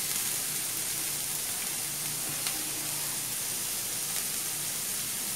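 Chopped onion, carrot, capsicum and green chilli sizzling steadily in hot oil in a flat pan, freshly added to be sautéed.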